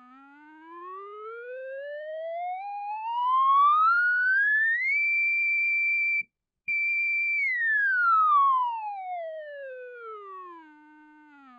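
KORG Volca Modular synthesizer tone whose pitch is swept by control voltage from a hand-turned potentiometer. It glides smoothly up for about five seconds to a high held note, cuts out briefly with a click about six seconds in, then holds and glides back down to a low note.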